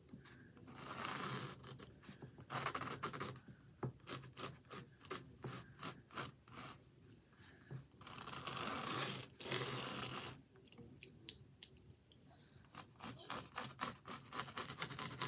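Pencil scratching on a canvas in many quick short strokes, with a few longer rubbing strokes, as hair is sketched in.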